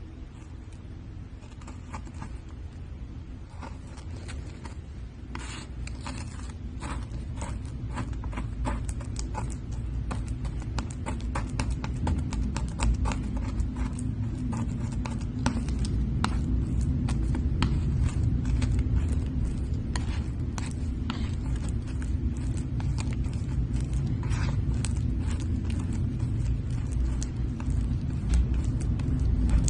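Slime being squished and poked by hand: many small irregular crackling pops and clicks over a low rumble that grows gradually louder.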